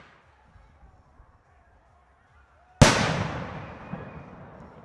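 A single aerial firework shell bursting about three seconds in: one sharp bang followed by a long, slowly fading echo. Before the burst there is a quiet climb with a few faint pops.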